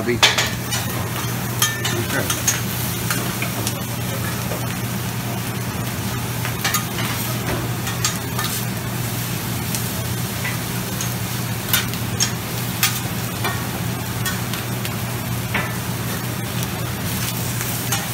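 Food sizzling on a steel flat-top Mongolian barbecue griddle while a cook stirs and turns it with metal spatulas, with scattered clicks and scrapes of metal on the griddle. A steady low hum runs underneath.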